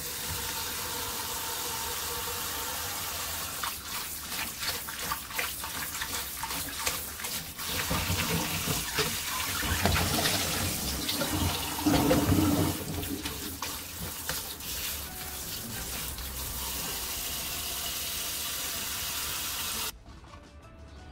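Kitchen tap running onto soaked wakame seaweed in a plastic colander in a stainless steel sink, with hands swishing and squeezing the seaweed and water splashing, louder for a few seconds around the middle. The water sound stops abruptly about a second before the end.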